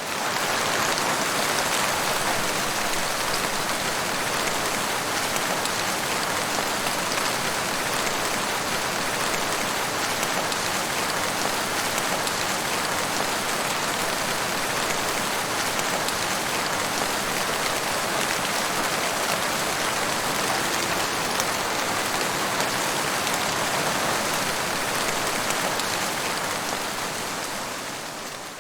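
Heavy rain falling steadily in a dense, even patter on a hard surface. It fades in at the start and fades out near the end.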